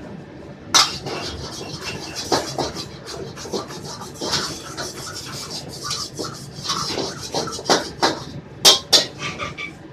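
Stir-frying in a wok over a gas burner: hot oil sizzling, starting suddenly about a second in, with a metal ladle scraping and knocking against the wok. The loudest knocks come near the end.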